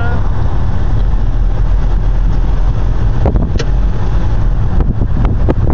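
Car moving slowly, heard from inside: a steady low rumble of engine, tyres and wind buffeting the microphone, with a few sharp clicks about three seconds in and more near the end.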